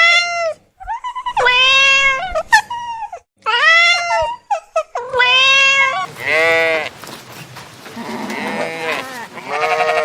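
Farm animals bleating: a run of about seven high, arching bleats, each under a second long, the later ones fainter and quavering.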